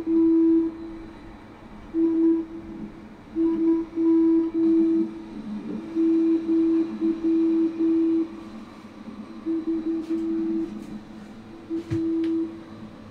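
A single low steady tone keyed on and off in short and long pulses: Morse code played through a loudspeaker in a sound installation. A few faint clicks near the end.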